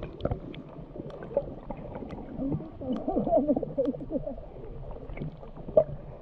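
Underwater sound picked up by a camera held just below the surface in shallow sea water: a dull, muffled water rumble with scattered light clicks and crackles, and a muffled warbling sound in the middle.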